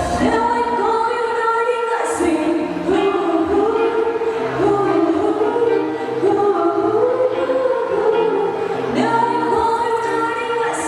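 Music with singing: a melody of long held notes, one after another, without a break.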